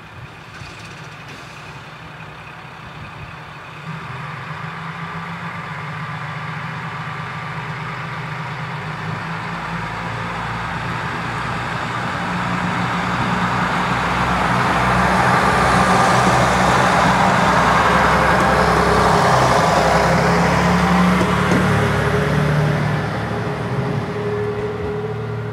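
JR East KiHa 100 series diesel railcar pulling away. Its engine note steps up about four seconds in, and engine and running noise build steadily as it accelerates, loudest in the second half, then ease a little near the end.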